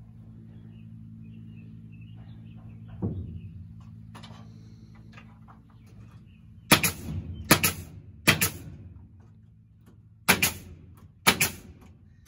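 Hammer blows on the wooden rafter framing overhead: three sharp strikes about a second apart a little past halfway, then three more near the end, each with a short ring. A low steady hum runs under the first half.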